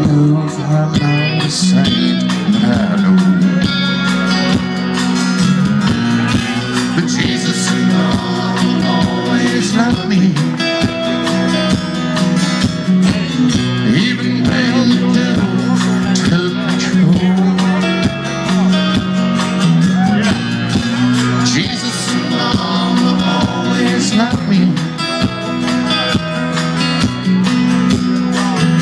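Country band playing live through a PA: electric and acoustic guitars, electric bass and drums, recorded from the audience.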